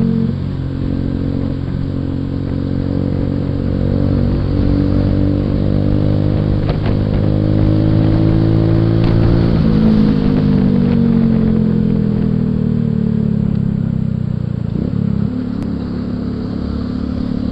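Suzuki Shogun 125's single-cylinder four-stroke engine under way, rising steadily in pitch as it accelerates for about nine seconds, then dropping suddenly and running down more slowly as the revs fall.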